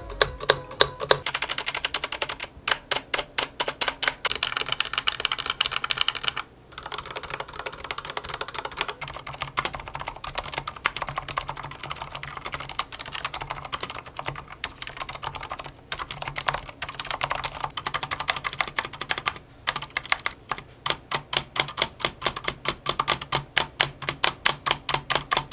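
Fast, continuous typing on a Corsair K60 Pro RGB SE mechanical keyboard with Cherry Viola switches and doubleshot PBT keycaps, broken by a few short pauses. The keystrokes carry the hollow case resonance that the reviewer finds severe.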